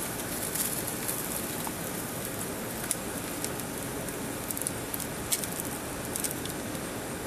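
Gas grill burning: a steady hiss with scattered crackles and clicks.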